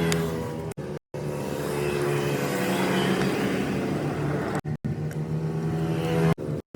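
A motor running steadily with an engine-like drone, broken off abruptly a few times by short silent gaps.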